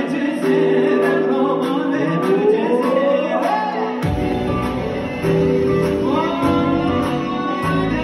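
Amplified live music for a halay line dance: a male singer holding and sliding between long notes over a steady drum beat. Deep bass comes in about halfway through.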